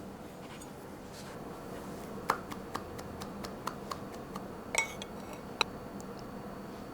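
Light clinks of cutlery against dishes: a run of small taps about four to five a second, then a couple of louder clinks near the end.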